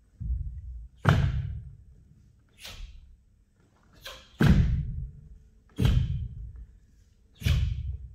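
Bare feet stamping and landing on a wooden sports-hall floor, with the sharp snap of a taekwon-do uniform on each technique. There are about six hard hits, roughly a second or more apart, each echoing briefly in the hall.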